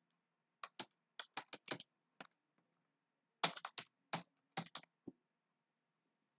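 Typing on a computer keyboard: quick runs of sharp keystroke clicks, two bursts with a short pause between them, stopping about five seconds in.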